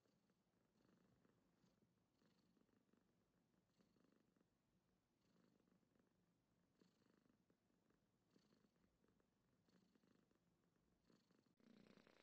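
Domestic cat purring very faintly, swelling and fading with each breath about every second and a half, with a click near the end.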